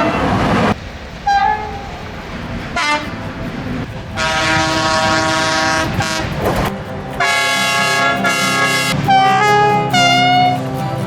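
Railway locomotive horns sounding in a series of blasts: two short toots, a long chord about four seconds in, then several more multi-tone blasts, some sliding in pitch. The noise of a passing train cuts off in the first second.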